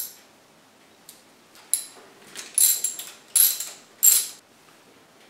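Hand ratchet clicking as nuts are backed off the studs of a Demag KM motor's brake cap. There are a few light metal clicks first, then three quick runs of ratchet strokes about two and a half to four and a half seconds in.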